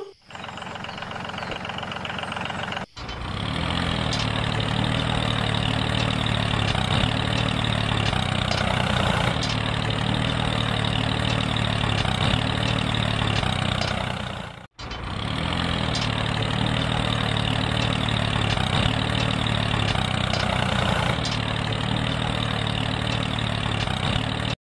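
A tractor engine running steadily at idle, broken by two short dropouts, about three seconds in and around the middle.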